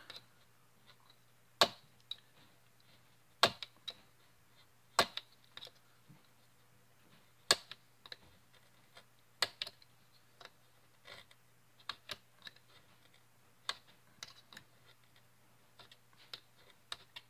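Utility knife cutting stiff polyester Habasit F1 belting in repeated passes along a steel guide, with a short sharp click every one to two seconds. A faint steady hum runs underneath.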